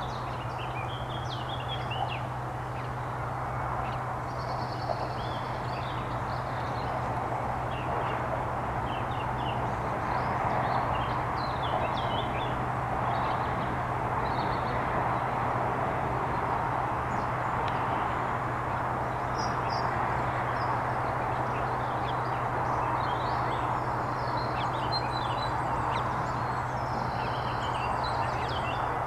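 Many short, high bird chirps and calls scattered throughout over a steady background hiss and low hum.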